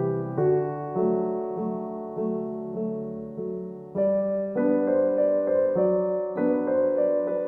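Background piano music: a gentle piece of notes and chords struck about every half second, growing fuller and higher about four seconds in.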